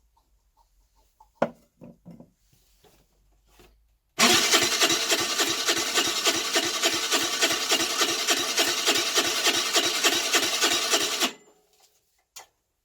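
Electric starter cranking the Baotian Tanco's 50cc four-stroke scooter engine for about seven seconds, an even rhythmic churning of about six beats a second that stops abruptly without the engine catching. The engine is flooding, with the spark plug wet after a few cranks, which the owner puts down to a fouled carburettor. A knock comes before the cranking and a click after it.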